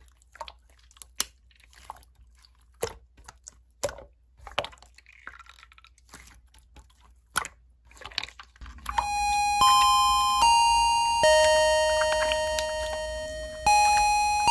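Slime being handled: scattered small clicks and pops. About nine seconds in, a school bell chime starts, a slow tune of ringing electronic notes, each one struck and fading away.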